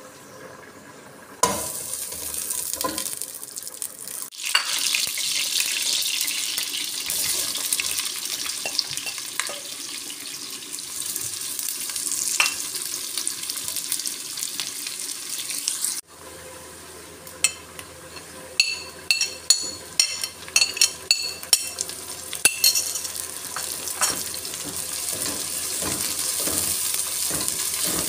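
Sliced onions sizzling as they fry in hot oil in a pot. The sizzle starts suddenly about a second and a half in as they hit the oil. Later a spatula stirs them, with a run of sharp clicks and scrapes against the pot.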